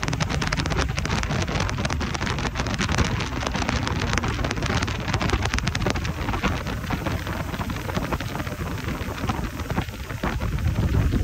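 Boat running at speed on open water: a steady rush of wind buffeting the microphone and spray hissing off the wake, with the Yamaha V MAX 250 outboard's low hum underneath.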